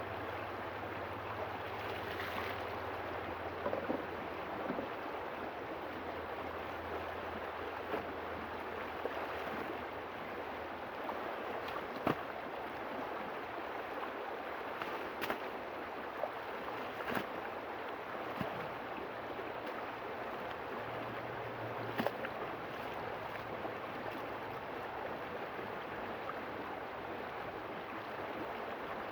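River water flowing steadily, with a few brief sharp clicks here and there.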